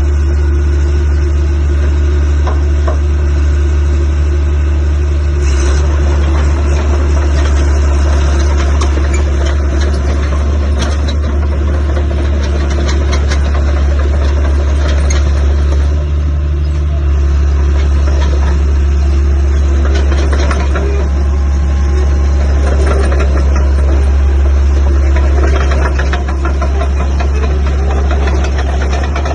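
Caterpillar D3C-III LGP bulldozer's diesel engine running steadily, with some rattling from the machine.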